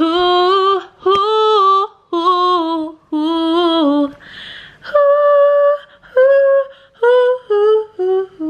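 A woman singing alone without accompaniment, in drawn-out 'wooow' notes of under a second each. The first four notes sit at a similar pitch; after a breath about halfway, the tune starts higher and steps down note by note.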